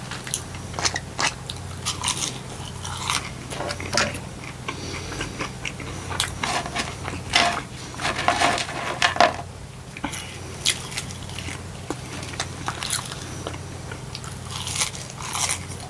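Close-miked chewing and crunching of crispy French fries, irregular bites and chews throughout, over a low steady hum.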